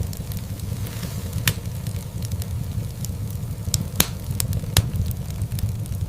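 Wood fire crackling in a fireplace: a steady low rumble of burning logs with scattered sharp pops, the loudest about four and five seconds in.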